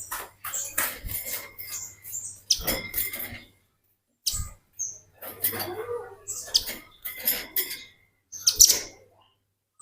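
Velvet-fronted nuthatch (red-billed 'rambatan') singing in rapid bursts of chattering, high-pitched notes, about seven bursts with short gaps between them, the loudest near the end.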